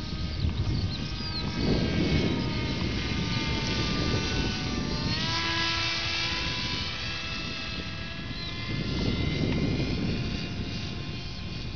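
Battery-electric motor and pusher propeller of a small radio-controlled airplane whining as it flies past overhead. The pitch drops as it passes, about five seconds in.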